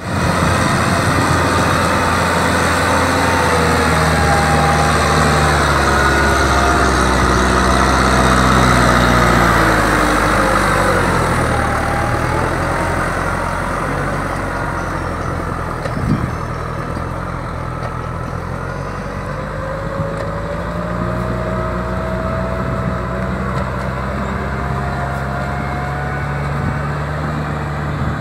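Kubota M6040 SU tractor's diesel engine running under load while ploughing a flooded paddy. Its note sinks about ten seconds in, then climbs again through the second half, with a single knock about midway.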